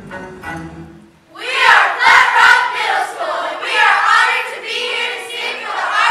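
Children's choir singing loudly together, coming in about a second in after the instrumental accompaniment breaks off.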